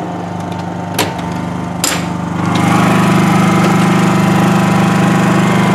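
Honda EU2000i inverter generator's small single-cylinder four-stroke engine running steadily, muffled inside a plywood baffle box. Two sharp metal clicks from the box's lid latch come about one and two seconds in. Then the engine grows louder as the lid is lifted, just under halfway through.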